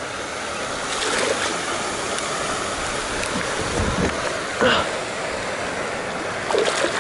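Steady rushing noise of wind and water, with a few brief splashes as a hooked largemouth bass thrashes at the surface beside a wooden dock.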